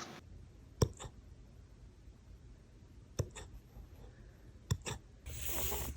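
A puppy hiccuping: three short, sharp hics about every one and a half to two seconds, each followed quickly by a second, fainter click. Near the end there is a brief burst of hissing noise.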